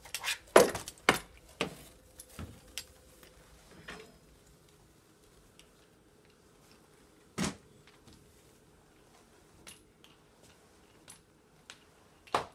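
Plastic spray mop head knocking and clicking against baseboards and furniture while it is pushed across a hardwood floor: a cluster of sharp knocks in the first second or so, then mostly quiet with a few scattered clicks, a louder knock past halfway and another near the end.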